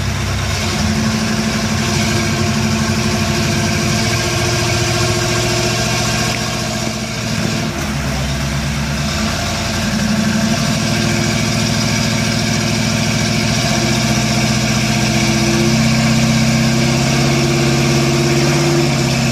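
Lifted 4x4 truck's engine running under load as it crawls up a rock ledge. The engine note steps up about a second in, eases off briefly around the middle, then comes back stronger and holds there until near the end.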